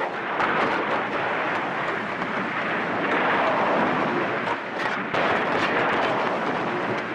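Warplanes crash-landing on an aircraft carrier deck: a loud, dense rumbling roar with many sharp cracks and clatters through it.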